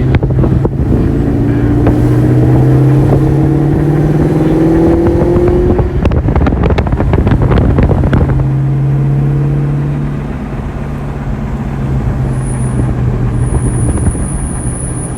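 Supercharged 4.6-litre V8 of a 2003–04 Mustang SVT Cobra accelerating, its pitch climbing for several seconds, with a rapid run of sharp pops or clicks partway through. It then settles and eases off, and near the end a thin, very high-pitched squeal comes and goes as the car slows: the front brake squeak.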